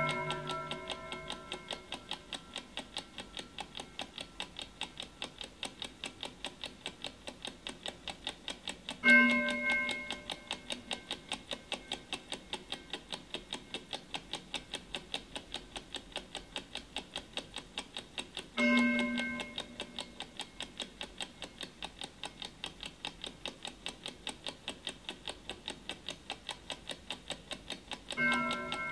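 An old clock ticking steadily and quickly, with a gong chime struck three times, evenly about nine and a half seconds apart, each strike ringing out for a second or two. Each gong marks an hour of a sped-up clock countdown.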